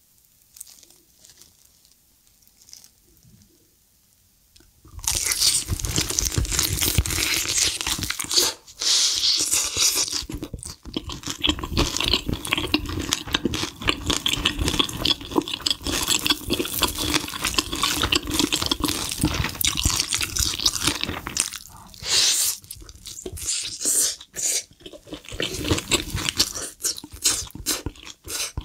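Close-miked crunching and chewing of spicy glazed fried chicken, the crisp batter crackling loudly with each bite. It starts about five seconds in, after a few faint soft sounds.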